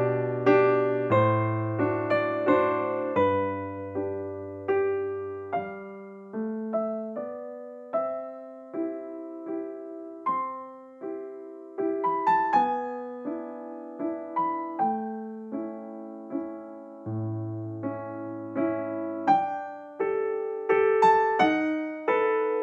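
Background piano music: a gentle melody of single struck notes over held bass notes, each note fading after it is played.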